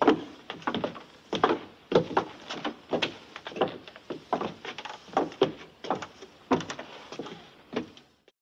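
Footsteps on a wooden floor: a person walking at an even pace, each step a sharp knock, some heard as quick heel-and-toe pairs. The steps stop near the end.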